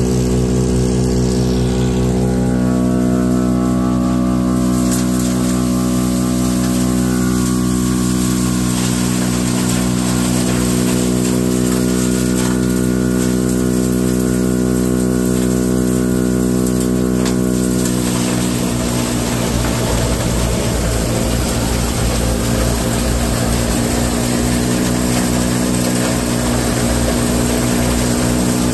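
Tractor-driven silage blower running with a steady drone. About eighteen seconds in, the drone is overlaid by a loud rushing hiss as chopped corn silage is blown up the fill pipe and pours into the upright silo.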